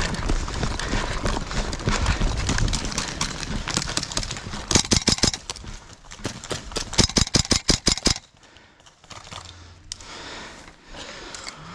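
Airsoft gun firing two rapid bursts of about ten shots a second: a short burst about five seconds in and a longer one a second and a half later. Before the bursts there are a few seconds of rustling noise.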